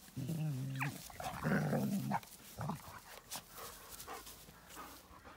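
Two dogs play-fighting, growling in loud wavering bouts for the first two seconds or so, with a quick rising yelp about a second in, then quieter for the rest.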